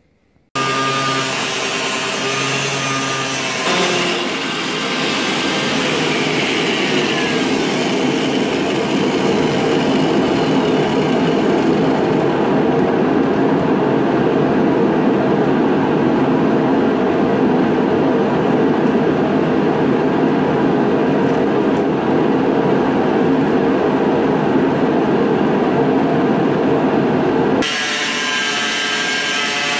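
Angle grinder cutting through the sheet-metal wheel arch of a car's front fender, starting suddenly about half a second in and running as a loud, steady grinding noise. The sound shifts abruptly near the end.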